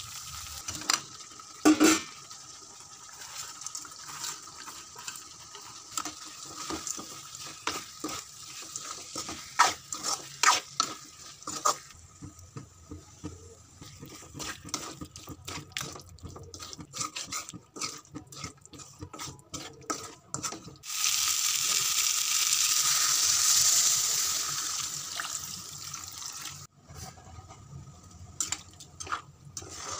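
A metal ladle stirring and scraping a thick masala in a metal pan, with repeated sharp clicks and taps against the pan. About two-thirds of the way through comes a steady rushing hiss of water being poured into the pan, lasting about five seconds; then the scraping taps resume.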